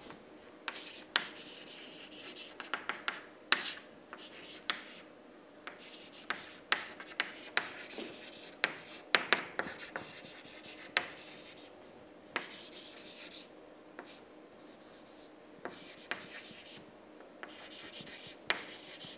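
Chalk writing on a chalkboard: irregular sharp taps as the chalk meets the board, mixed with short scratchy strokes.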